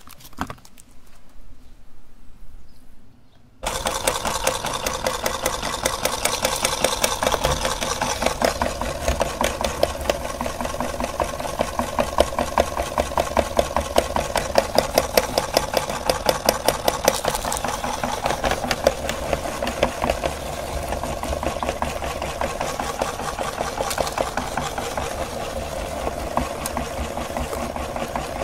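Electric meat grinder starts abruptly a few seconds in and runs steadily with a rapid, even rattle while grinding frozen chocolate-coated ice cream bars.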